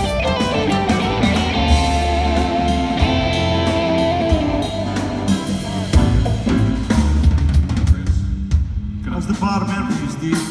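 Rock band playing live through a hall PA, the electric guitar loudest over drum kit and bass, heard through a cell phone's microphone. A long, wavering guitar note is held through the middle, and the playing dies away at the very end.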